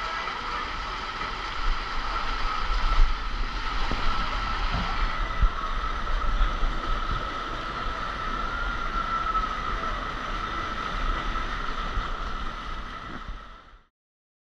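A ride down a water slide, heard from the rider: a steady rush of water and sliding over a low rumble, with a held ringing tone. It cuts off abruptly near the end.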